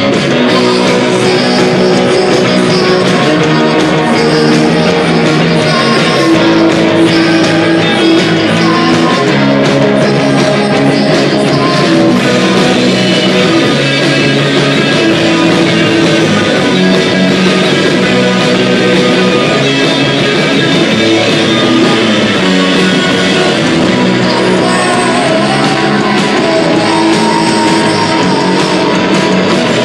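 Live rock band playing loud: electric guitars and a drum kit, with singing.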